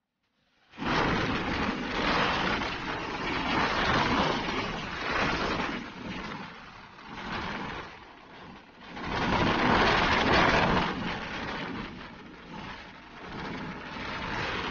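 Road traffic noise: a steady rush of tyres and engines with vehicles swelling past, loudest about nine to eleven seconds in. It starts abruptly after a moment of silence.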